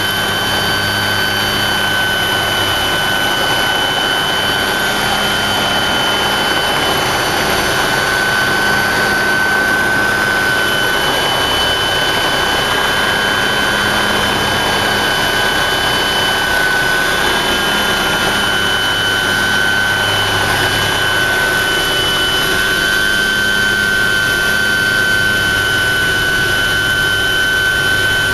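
Helicopter engine and rotor noise heard from inside the cabin during takeoff: a loud, steady running sound with a constant high whine over it.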